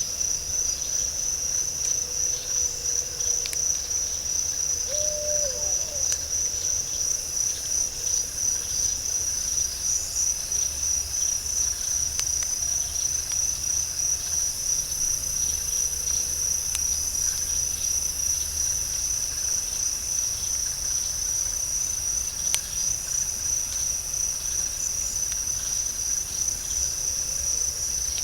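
Night chorus of crickets: a steady, rapidly pulsing high-pitched trill, with a second, higher insect trill growing louder about a quarter of the way through. A few faint ticks are scattered through it.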